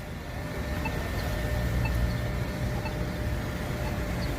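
Steady low rumble of passing road traffic, with faint short ticks about once a second from a crosswalk push-button's locator tone.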